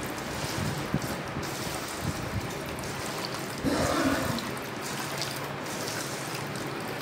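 A hand mixing raw mango pieces through oily chilli and mustard masala in a stainless steel bowl for avakaya pickle: wet squelching and squishing, with small knocks as pieces hit the steel. The mixing gets louder a little past halfway.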